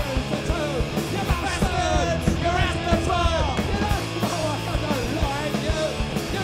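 Punk rock band playing live: electric guitar, bass and drums, with a lead vocal over them.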